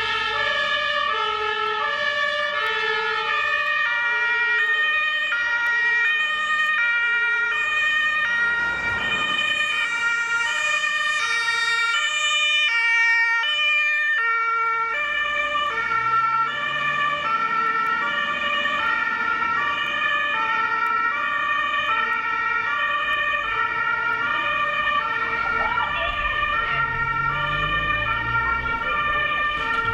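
German fire engines' two-tone sirens (Martinshorn) alternating steadily between a high and a low note, two sirens sounding out of step with each other. A truck engine runs beneath them, rising in pitch about halfway through as it accelerates.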